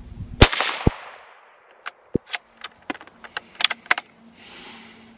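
A single rifle shot fired from a tripod rest about half a second in, its echo trailing off over the next second. It is followed by a quick run of about ten sharp clicks over two seconds, with a short soft hiss near the end.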